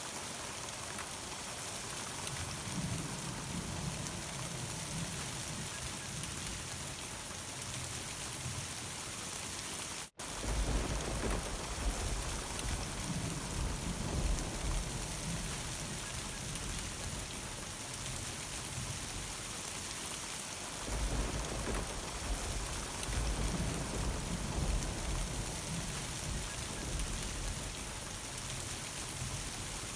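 Steady summer rain falling hard, with long low rolls of thunder rumbling under it, heaviest in the second half. About ten seconds in, the sound drops out for an instant.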